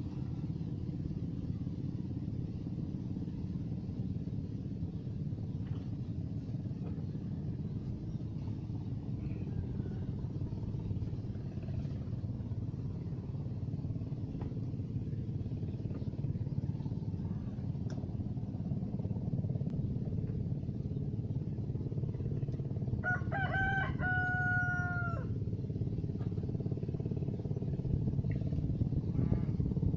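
A rooster crowing once, about three-quarters of the way through: a few short notes and then one long held note. A steady low rumble runs underneath.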